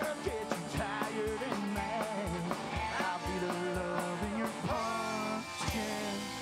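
Live rock band playing: electric guitars, upright bass and drum kit with a steady beat, and a male voice singing, holding one long note about five seconds in.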